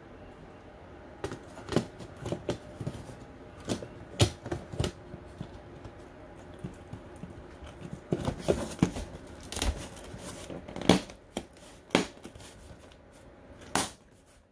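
Round plastic adjustable AC vent being pushed by hand into its ceiling opening to snap it in place: irregular plastic clicks, knocks and creaks, a few of them sharp and loud.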